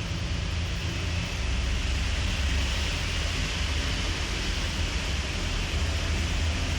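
A sleeping pet's faint snoring under a steady hiss and low rumble.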